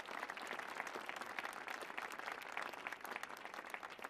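Audience applauding: many people clapping at once in a dense, even patter.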